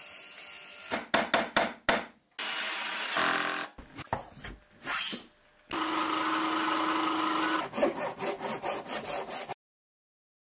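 A quick patchwork of woodworking-shop sounds: a run of sharp knocks on wood, short stretches of power tools running (one with a steady hum), and a rapid train of strokes on wood. It cuts off suddenly about a second before the end.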